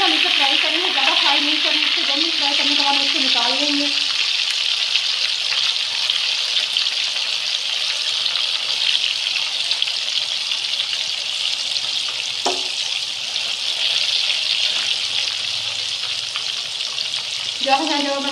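Marinated fish pieces frying in hot oil in a frying pan, a steady high sizzle. Near the end it briefly gets louder as more fish is slipped into the oil.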